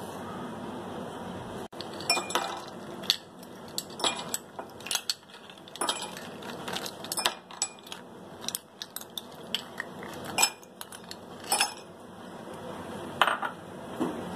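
Ice cubes and a metal spoon clinking against glass as ice is lifted from a glass bowl and dropped into drinking glasses. The clinks and clatters come irregularly, starting about two seconds in, over a steady low hiss.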